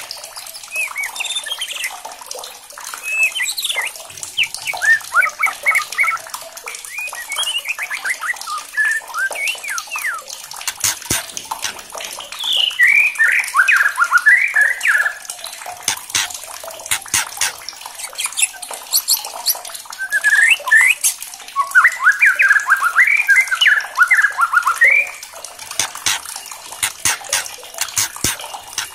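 White-rumped shama (murai batu) singing loud, fast phrases of quick up-and-down whistled notes, several seconds each, with short pauses between them. Sharp ticking clicks run all through, the harsh 'kretekan' call of an agitated shama.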